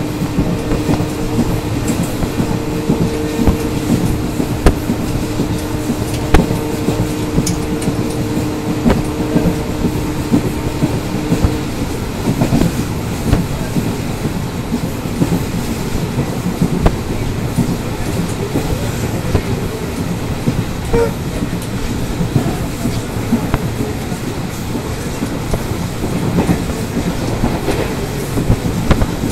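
Passenger train coach running at speed, its wheels clattering over the rail joints with irregular sharp knocks over a steady rumble. For about the first twelve seconds a steady two-note tone sounds above the clatter, then stops.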